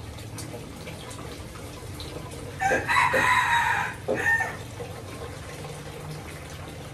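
A rooster crows once, a loud call about two and a half seconds in that lasts about a second and a half. Under it, liquid trickles faintly as it is poured from a plastic jug into a plastic bottle.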